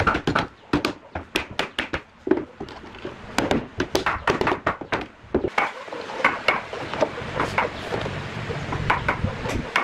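Wooden mallet knocking thin wood strips down against the nails of a curved bending form on a plywood board, a quick irregular run of hard wooden knocks. About halfway through the knocks thin out into fewer, lighter wooden clicks as the strips are handled.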